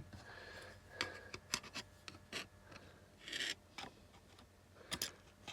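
Faint handling noises from a power tool being taken apart by hand: a scatter of small clicks and taps, with a short scraping rub about three seconds in.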